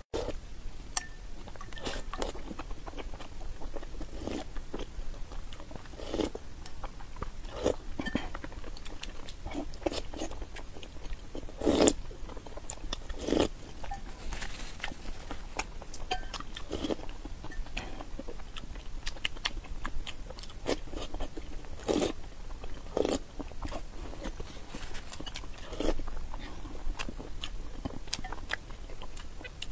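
Close-miked eating of boiled eggs in soy sauce: wet chewing and mouth sounds, with irregular clicks of a metal spoon against the ceramic bowl.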